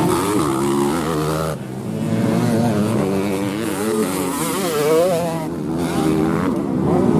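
Dirt bike engines revving hard on a dirt race track, their pitch swinging up and down with the throttle. Several bikes are heard at once, with a short dip about a second and a half in.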